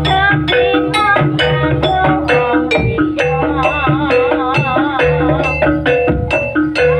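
Javanese gamelan music accompanying a jaranan horse dance: struck metal-keyed instruments and drums in a steady, busy rhythm, with a wavering melody line above them.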